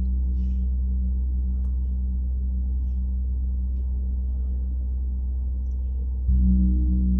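Handmade 85 cm (34-inch) Grotta Sonora deep gong ringing with a low, wavering hum that slowly fades. It is struck again about six seconds in, and the hum swells back up.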